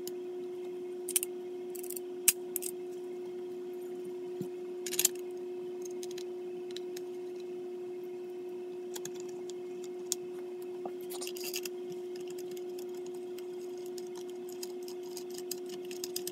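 Steel parts of a home-built .32 ACP broomhandle pistol being fitted back together by hand. There are a few sharp metallic clicks and taps in the first five seconds, a brief scraping rasp about two-thirds of the way through, and a few light ticks near the end, over a steady hum.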